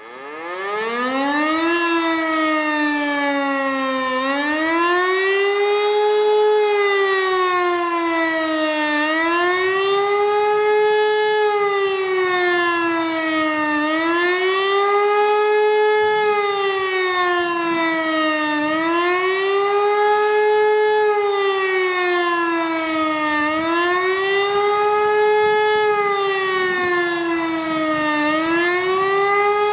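Elektror E57 motor siren spinning up and sounding the German public-warning signal ('Bevölkerungswarnung'). Its pitch climbs from low over the first couple of seconds, then the howl rises and falls roughly every five seconds.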